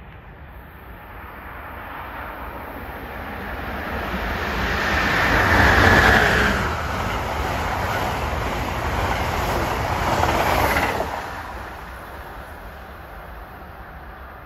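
Amtrak Northeast Regional passenger train with Amfleet coaches passing through the station at speed. Its rush builds, is loudest about six seconds in as the head end goes by, holds steady while the coaches pass, and drops off sharply about eleven seconds in as the last car clears.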